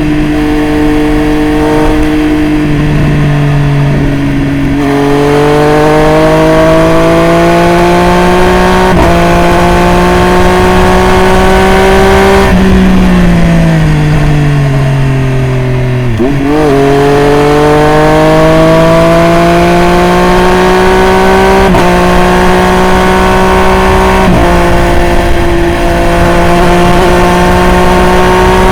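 Triumph Street Triple RS three-cylinder engine through a Jeskap full exhaust, ridden: it pulls up through the gears with a shift every few seconds. About halfway the revs fall off for a few seconds as it slows on a closed throttle, then it pulls up through the gears again.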